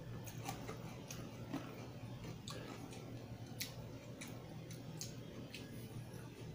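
Close-miked chewing of rice and fried chicken: scattered small clicks and mouth smacks, over a steady low hum.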